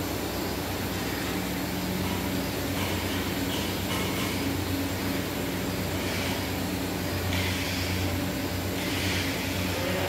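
Steady machinery hum and drone of a steam-kettle mawa (khoya) plant running, with its wall exhaust fans turning and brief bouts of hiss now and then, more of them in the second half.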